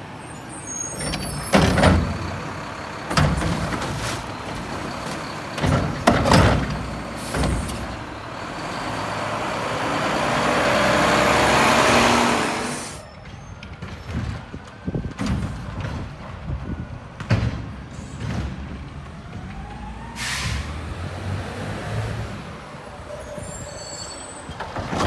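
Front-loader garbage trucks with Curotto-Can automated arms working curbside carts. A few loud bangs and clanks come as a cart is tipped into the can, then the truck's engine builds up into a loud rush as it drives close past and cuts off suddenly. Later another truck runs at lower level with scattered clicks and one short hiss of air brakes.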